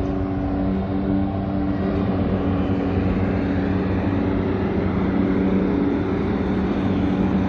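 Motor vehicle engine and road traffic noise: a steady engine hum with a low rumble, holding about the same level throughout.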